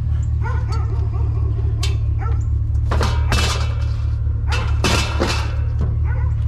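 A dog barking in short calls over a steady low engine idle, with two loud clatters about three and five seconds in.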